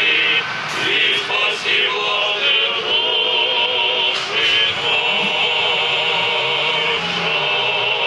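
Men's voices of Russian Orthodox clergy and choir singing a moleben chant together, held notes with a wavering vibrato and a few short breaks between phrases in the first two seconds.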